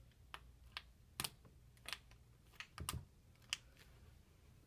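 Faint, scattered sharp clicks and taps, about seven in three and a half seconds at uneven spacing, over a faint steady low hum.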